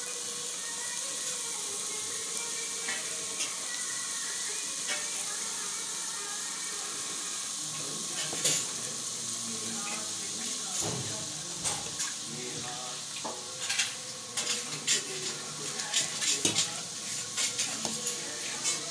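Gujiya deep-frying in hot oil in a wok, a steady sizzle. From about eight seconds in, a steel spoon clinks and scrapes against the pan as the pastries are turned.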